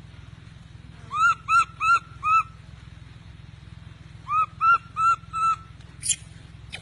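Baby monkey giving distress calls: two runs of four short, clear cries, each rising then falling in pitch, with a brief high squeak after them, over a steady low hum.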